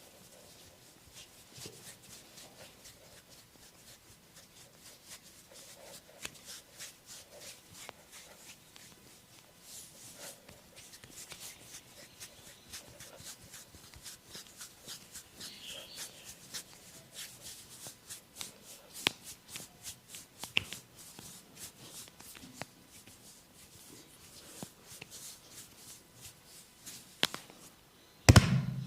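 Massage on bare skin: a long run of quick, soft taps, slaps and rubbing strokes that grows denser and busier from about a third of the way in. A sudden loud burst comes just before the end.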